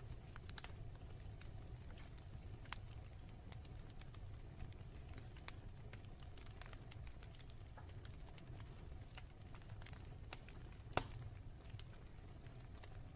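Fire burning in a fireplace, crackling with scattered small pops over a low steady rumble, and one sharper, louder pop near the end.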